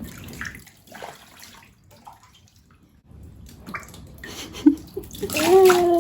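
Water in a baby's bathtub splashing and dripping in small, uneven sloshes as a small child plays in it. A short voice is heard near the end.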